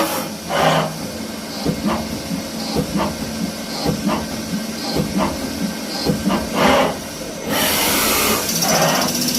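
CNC lathe running while turning hex-head screws: a steady hum with short light knocks roughly once a second, then a loud hiss starting about three-quarters of the way through.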